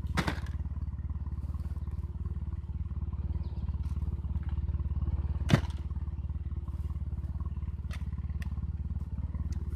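A steady low drone runs throughout, with a brief clatter of broken hard-drive pieces being handled right at the start and a single sharp crack about five and a half seconds in.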